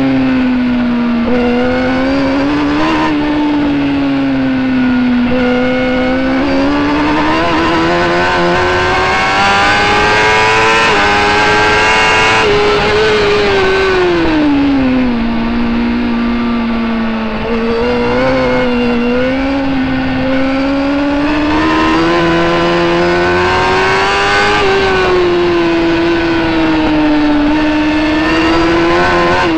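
Racing superbike engine heard onboard at race speed over wind rush. Its pitch climbs steadily under acceleration, drops sharply about halfway through as the bike brakes for a corner, then climbs again.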